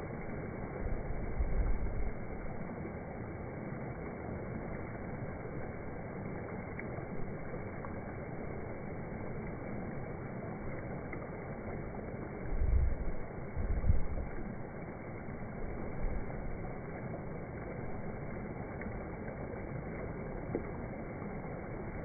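Water rushing steadily over the rocky lip of a waterfall. Low gusts of wind buffet the microphone about a second in and again twice around the middle, the loudest moments.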